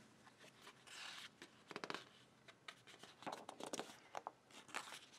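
Sheets of printed paper being handled and shuffled by hand: soft rustles and crinkles in several short bouts.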